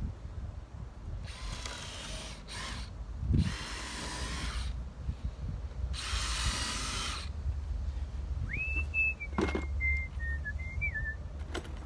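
Cordless drill driving screws into wooden boards in four short runs, the longest about a second and a half. Later someone whistles a few held notes that step down in pitch, with a single knock partway through.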